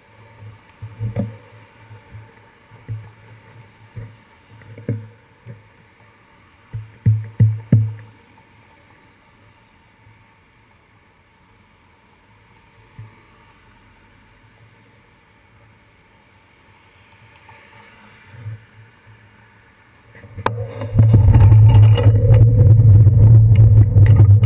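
Road traffic heard from a handlebar-mounted GoPro on a stopped bicycle, cars passing now and then during the first eight seconds, then a quieter stretch. About twenty seconds in the bike sets off, and a loud, steady rumble and rattle of road vibration and wind on the camera takes over.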